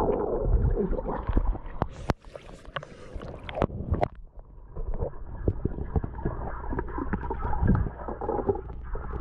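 Pool water heard through a GoPro's underwater housing: muffled sloshing and gurgling with scattered small clicks and knocks. A brighter, splashier stretch comes about two to three and a half seconds in.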